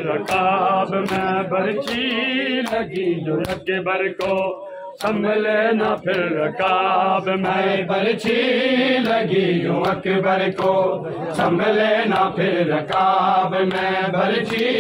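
Men chanting a noha lament together, with a steady beat of hand strikes, about one or two a second: matam, the ritual beating of the chest in mourning.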